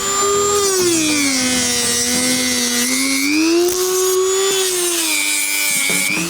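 Dremel rotary tool cutting into LEGO plastic. Its high whine sags in pitch as it bites in about a second in, climbs back near the middle, then dips and rises again near the end, the motor slowing and recovering as the load on it changes.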